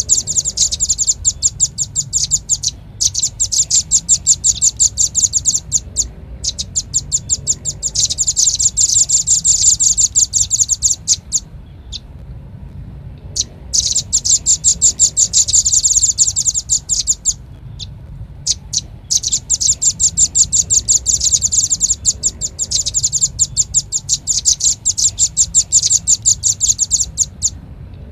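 Velvet-fronted nuthatch calling: fast runs of short, high chips in bouts of several seconds, broken by short pauses.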